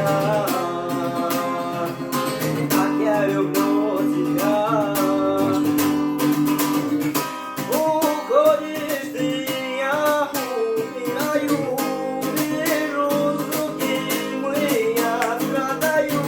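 Acoustic guitar strummed in a steady rhythm under a gliding, ornamented sung melody: a Romani-style song.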